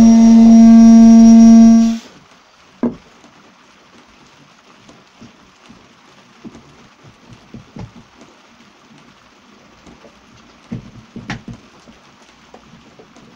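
Table-mounted router running with a steady high whine for about two seconds, then cutting off abruptly. A few faint knocks follow as a board is handled against the fence, the clearest about three seconds in and a few more near the end.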